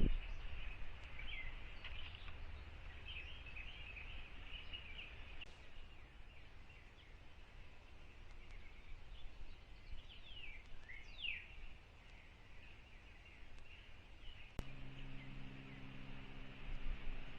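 Outdoor bird chorus: many small birds chirping, with a couple of quick downward-sliding calls about ten to eleven seconds in. About three-quarters of the way through a sharp click is heard, after which a faint steady low hum sets in.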